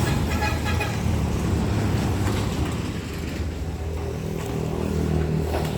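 Engine running steadily at an even, low pitch.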